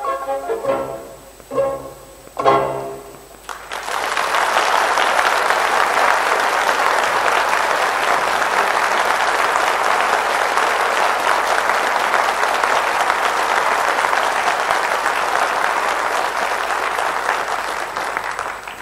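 A chamber orchestra with violins plays its last few chords, then an audience breaks into steady applause about four seconds in that lasts to the end.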